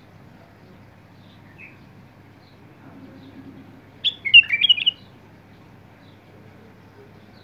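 Caged white-eared bulbul singing one quick phrase of several warbled notes, about four seconds in, after a faint single chirp.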